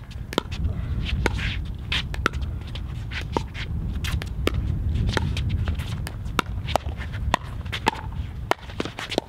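A pickleball rally: sharp hollow pops of paddles striking a plastic ball, coming irregularly about twice a second, mixed with shoes scuffing on the hard court, over a steady low rumble.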